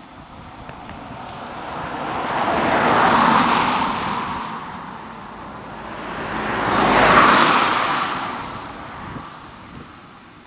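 Two cars passing one after the other on a country road. Each swells to a peak of tyre and engine noise and then fades, the first about three seconds in and the second about seven seconds in.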